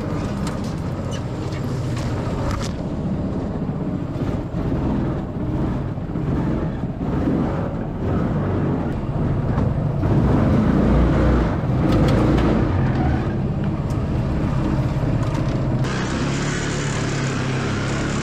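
212cc 6.5 hp single-cylinder four-stroke small engine running steadily, driving the surface-drive boat along. A steady hiss joins near the end.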